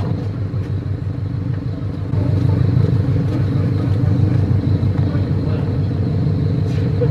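Motor vehicle engine idling steadily with a low rumble, a little louder from about two seconds in.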